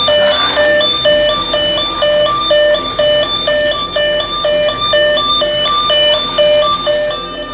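Battery-powered toy police car's electronic siren, a buzzy two-tone warble stepping between a high and a low note about twice a second.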